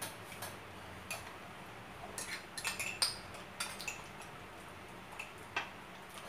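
Metal spoons clicking and scraping against large plastic ice cream tubs as ice cream is scooped, in a scattering of short, irregular clicks with a small cluster in the middle.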